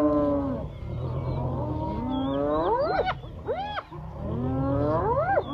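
Spotted hyenas calling: a run of loud whooping calls that sweep up in pitch, with a couple of short arched yelps rising and falling around the middle and again near the end, over a steady low rumble.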